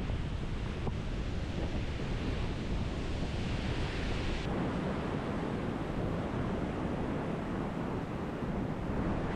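Lake Superior waves washing onto the shore, with wind buffeting the microphone. The hiss of the wash swells and then drops off sharply about halfway through.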